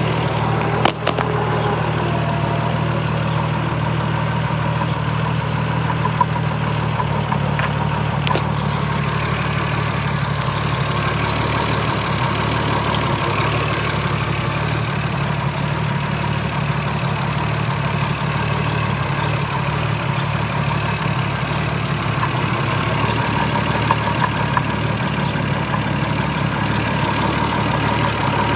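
Toyota 7M-GTE turbocharged inline-six engine idling steadily, with a couple of brief clicks. The owner suspects a rod knock.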